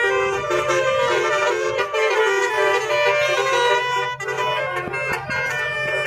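Basuri musical air horns playing a tune in stepped, held notes, like a wind instrument, over a steady low hum.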